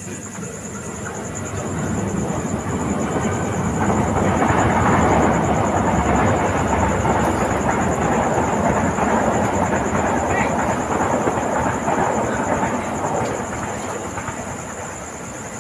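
A loud, wordless rushing rumble that swells over the first few seconds, holds, and slowly fades near the end, like something large passing by.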